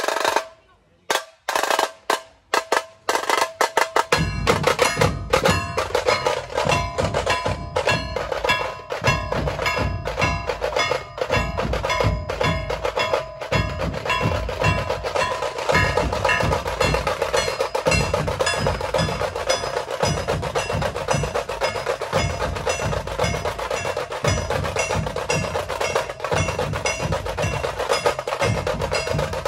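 Dhol-tasha drum troupe playing: a few sharp tasha strikes after a brief break, then from about four seconds in a dense, fast tasha roll over deep, heavy dhol beats.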